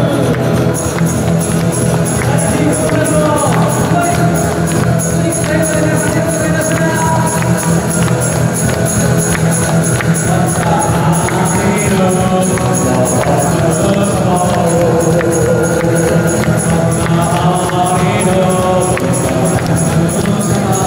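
Live band music with a steady beat, acoustic guitar and drum kit, played as an Amami/Okinawan-style hand-dance song.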